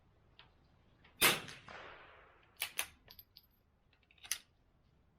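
A single .22 LR rifle shot from an Anschutz Model 64MPR firing Lapua Center X, its report trailing off over about a second. A few sharp clicks follow, typical of the bolt being worked.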